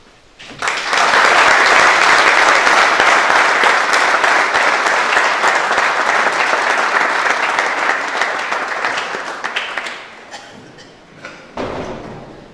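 Audience applauding: the clapping starts about half a second in and dies away after about ten seconds.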